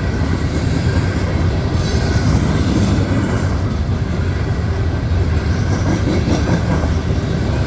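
Loaded coal hopper cars of a long freight train rolling past, with a steady, loud rumble and clatter of wheels on the rails.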